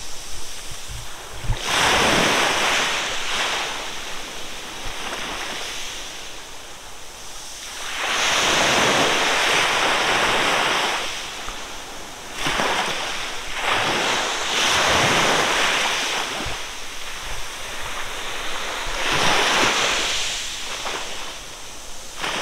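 Small sea waves breaking and washing up onto a sandy beach, the surf swelling and ebbing every few seconds, with some wind on the microphone.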